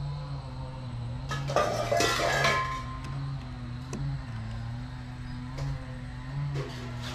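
Large aluminium pot of mutton in water being handled: a clatter and scrape of metal about a second and a half in, and a smaller knock near the end. Under it runs a steady low hum with a slightly wavering pitch.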